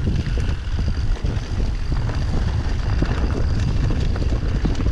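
Mountain bike rolling down a dirt trail, heard as a loud, steady wind rumble on the microphone with tyre noise and small rattles over the ground.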